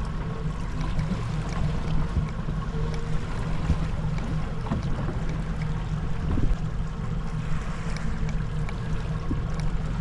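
Boat motor running steadily at trolling speed, a constant low drone over a rush of wind and water.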